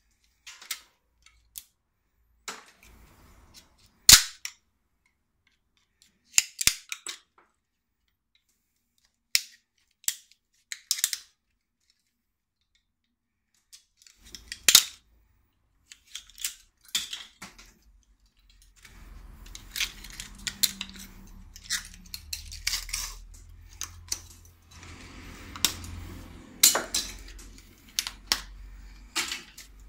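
Sharp snips, snaps and clicks of hand tools cutting and prying terminals and plastic pieces off a small transformer to get at its copper, spaced a second or two apart at first. From about two-thirds of the way in, the clicks come thicker over steady rustling handling noise and a low rumble.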